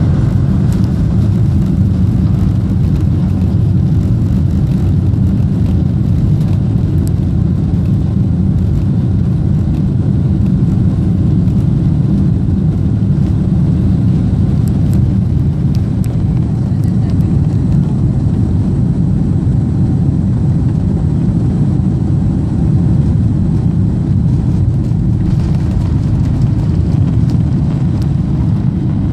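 Cabin noise inside a Boeing 747-400 heard from a seat over the wing: a steady low rumble of its jet engines and rolling wheels as it rolls out and accelerates for takeoff, with a little more hiss coming in near the end.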